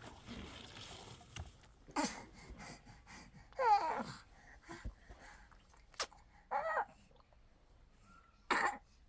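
A person's short, scattered non-speech vocal sounds: breathy gasps and a brief cry that falls in pitch, with a sharp click in between.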